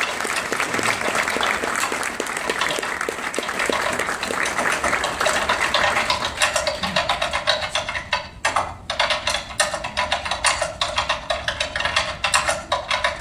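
Audience applauding, a dense patter of clapping that thins into scattered claps over the last few seconds.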